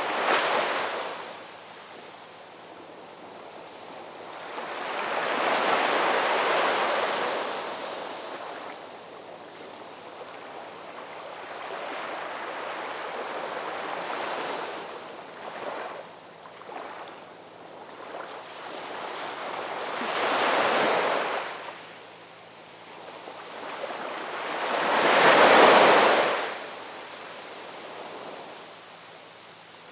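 Sea waves breaking and washing up a beach, swelling and ebbing several times, with the biggest wave breaking about 25 seconds in.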